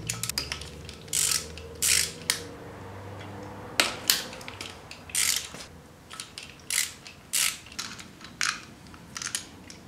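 Socket ratchet working the 14 mm bolt of a timing-belt idler roller on a Subaru EJ25 engine: short bursts of ratcheting clicks, about one a second, as the handle is swung back for each turn.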